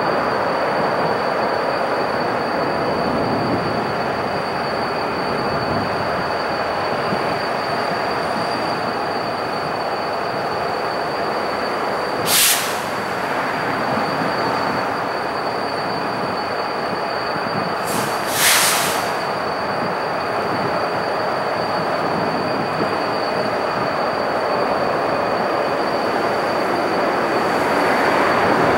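Freight train rolling through a rail yard, with a steady noise and a thin, high squeal held throughout. Two short, sharp bursts of high-pitched noise come about 12 seconds in and about 18 seconds in.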